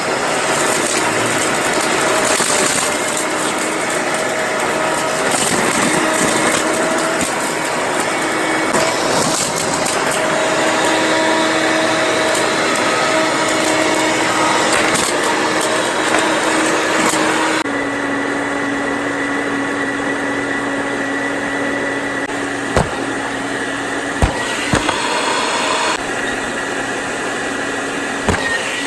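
Eureka Bravo II upright vacuum cleaner's motor running with a steady whine and rushing air. About eighteen seconds in, the hiss drops away and the hum settles a little lower. A few sharp knocks follow.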